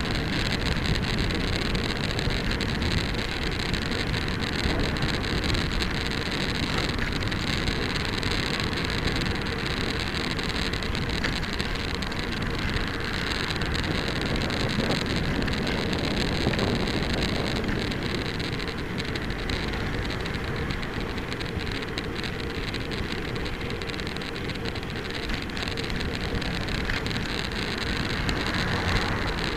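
Steady rushing wind noise on the microphone of a bicycle-mounted camera while riding along a wet road, with tyre hiss beneath it. An oncoming car passes near the end.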